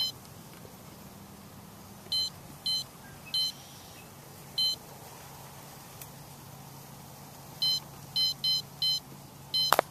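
Lowrance Elite-4 DSI fish finder/GPS beeping at each key press: about ten short high beeps at uneven spacing, several in quick succession near the end. A sharp click comes just before the end.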